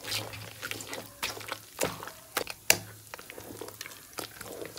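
A wooden masher stirring and mashing a thick, wet mix of cooked jackfruit and beef in an aluminium pot. It makes irregular wet squelches and slaps, with sharper knocks against the pot, the loudest a little past halfway.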